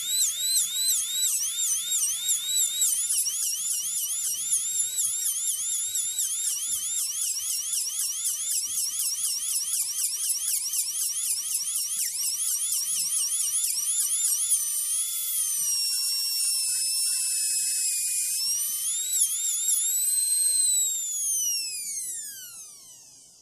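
Dental drill whining at a high pitch, its pitch wavering quickly up and down about three times a second, then holding steadier with slower dips. Near the end the pitch falls steadily and the sound fades away as the drill winds down.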